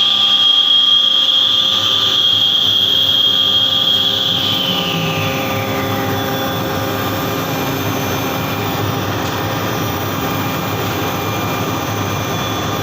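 Edge banding machine running. A high-pitched motor whine drops in pitch about four to six seconds in as one of its motors winds down, while the rest of the machine keeps up a steady mechanical hum.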